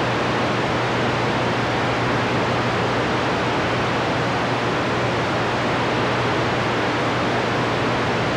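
CB radio on channel 28 (27.285 MHz) receiving only band noise: a steady hiss with a low hum under it. The squelch is open and no station is transmitting.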